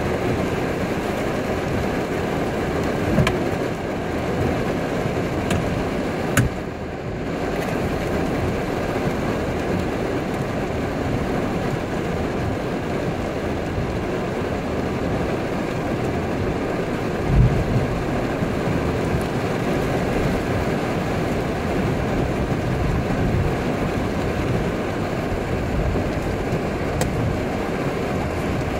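Heavy rain pouring steadily onto pavement, with the swish of cars driving through standing water on a flooded road. A few short thumps stand out, the loudest about seventeen seconds in.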